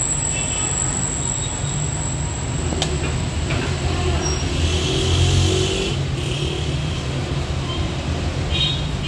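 Steady street and traffic noise: a continuous low rumble with a thin high whine over it, and one sharp click about three seconds in.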